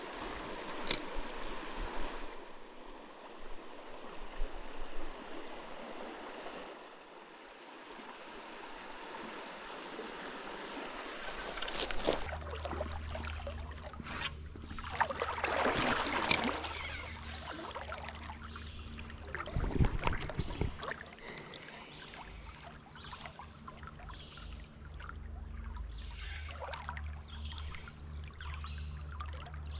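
Shallow creek water running and trickling, with louder swishes of water about halfway through as someone wades through it.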